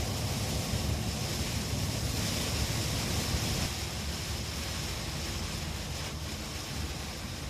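Steady rush of heavy typhoon rain, with wind rumbling on the microphone.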